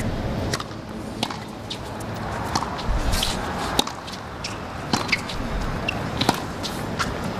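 Tennis rally on a hard court: sharp racket-on-ball strikes and ball bounces, about one a second, over a hushed stadium crowd.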